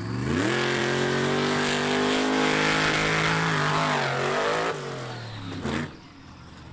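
Monster truck engine revving hard: the revs climb about half a second in and are held high for several seconds, then drop away, with a short loud burst near the end before it quietens.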